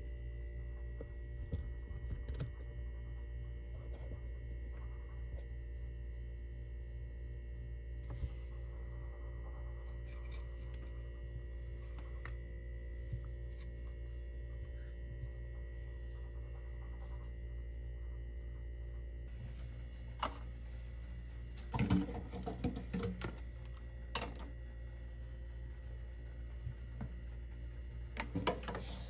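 Steady low hum with faint scratching and rubbing of espresso preparation. About two-thirds through, and again near the end, come short clusters of clinks and knocks as the metal portafilter and a ceramic cup are handled and set down at the espresso machine.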